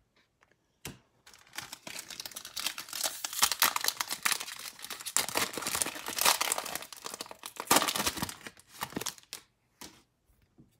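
The wrapper of a 2020 Panini Prizm football card pack being torn open and crinkled by hand: a dense, crackly run of tearing and crumpling from about a second in until near the end, swelling louder three times, with a few single crackles at either end.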